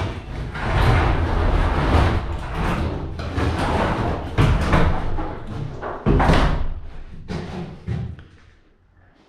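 Loose scrap being picked up and tossed: a run of loud crashes and thuds with several sharp bangs, dying away about eight and a half seconds in.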